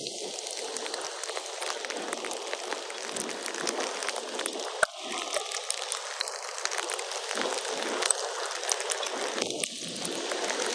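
Steady rain: an even hiss of falling water with many small drop ticks scattered through it.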